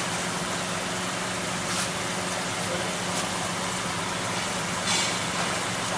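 Richpeace automatic sewing machine running with a steady mechanical hum, with a few faint clicks.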